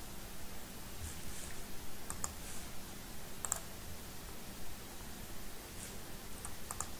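A handful of light, scattered clicks from a computer mouse.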